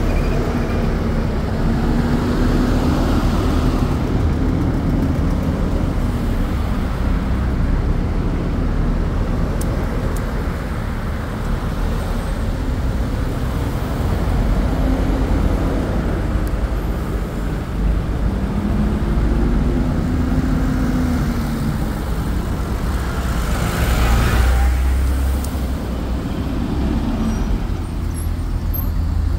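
Street traffic: vehicles running and passing with a steady low rumble and an engine hum that rises and falls. A vehicle passes close about three quarters of the way through.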